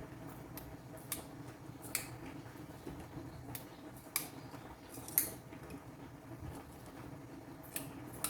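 Half a dozen sharp, light clicks and taps, spaced irregularly, over a steady low hum.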